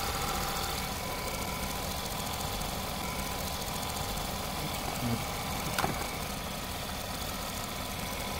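Seat Ibiza 1.2 TSI four-cylinder petrol engine idling steadily under the open bonnet, with a couple of brief light clicks about five and six seconds in.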